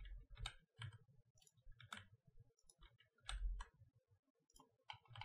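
Faint, irregular clicks of a computer mouse and keyboard keys being pressed, with a couple of soft low thumps about three and a half seconds in.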